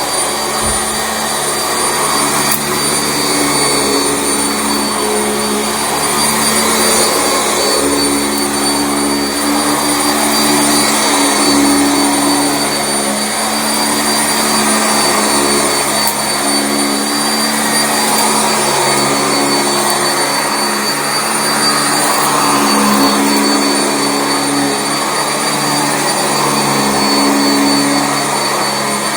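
Sanitaire SC679J commercial upright vacuum running continuously while vacuuming carpet, a steady loud rush with a high whine from the motor and a wavering low hum as it is pushed back and forth.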